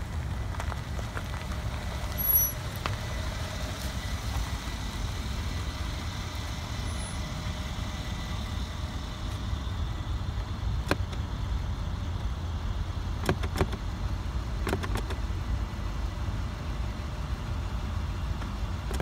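Mercedes-Benz S550 4Matic running at low speed and idling, heard as a steady low rumble, with a few light clicks in the second half.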